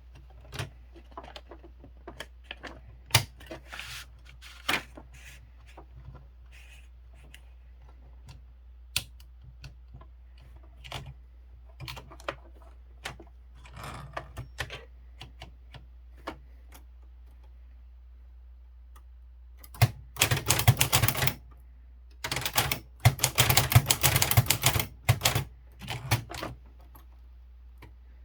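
Kyungbang Clover Topstar 10S manual Hangul typewriter being typed on: sharp key strikes at an uneven, unhurried pace. In the last third there are two louder stretches of dense, fast clattering, one short and one lasting about four seconds.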